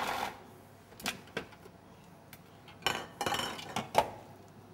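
A spatula knocking and scraping against a food processor's bowl while stirring ground lamb paste. A few separate clicks, a short cluster of knocks about three seconds in, and the loudest knock about four seconds in.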